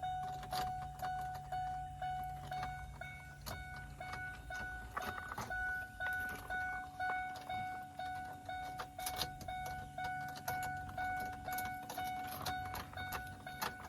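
Pickup truck with a low steady hum and a steady high electronic tone sounding in it, while keys jingle and click as they are handled.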